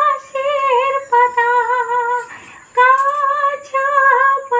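A woman singing long, high held notes with a wavering vibrato, in short phrases broken by brief pauses.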